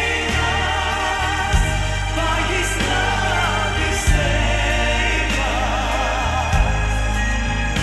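Worship music with singing: a choir or group of voices over sustained bass, with cymbal strokes at intervals.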